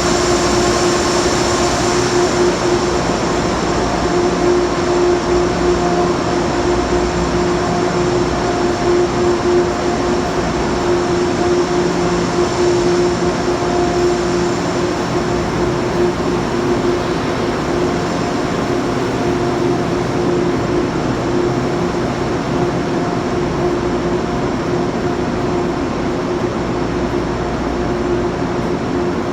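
Metro-North commuter train standing at the platform with its equipment running: a steady hum and whir with a constant mid-pitched tone. A higher whine fades away a couple of seconds in.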